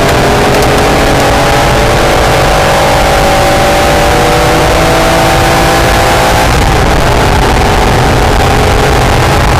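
Acura NSX's mid-mounted V6 pulling hard on track. Its note climbs slowly for about six seconds, changes abruptly, then holds steady, over heavy road and wind noise.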